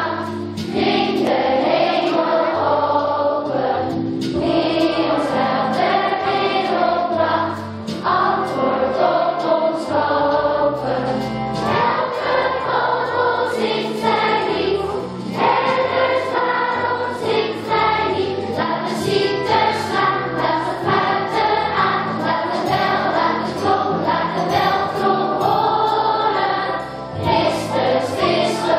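A children's choir singing a song with instrumental accompaniment, steady throughout.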